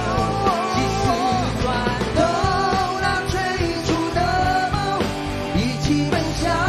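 Rock band playing live, with a male lead vocal singing in Mandarin over electric and acoustic guitars, drums and keyboards.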